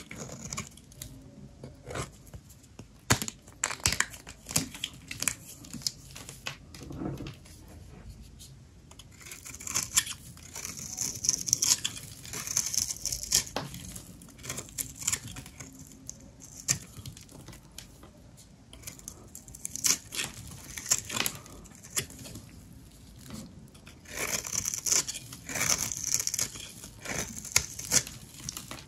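Dry soap being cut and crumbled by hand: crisp crackling and scraping with many sharp clicks. The crackling swells twice, about ten seconds in and again near the end.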